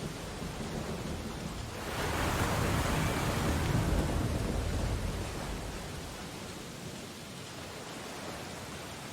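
Ocean surf: a wave breaks about two seconds in and its wash slowly fades away over the next few seconds, over a steady background hiss of water.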